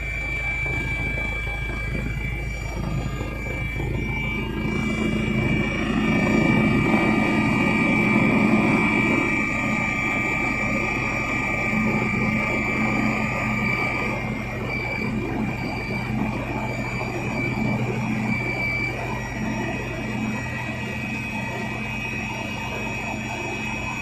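Helicopter in flight heard from inside the cabin: a steady high turbine whine over a continuous rotor and engine rumble. It grows louder for a few seconds near the middle.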